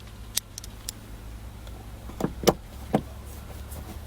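Clicks and knocks from handling the sunroof switch and map-light assembly in a car's headliner: a few light clicks, then three sharper knocks about two to three seconds in, the middle one loudest.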